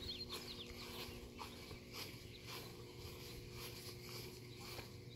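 Faint scattered ticks and scrabbling of young field mice moving about in a plastic bucket, with a few high chirps right at the start.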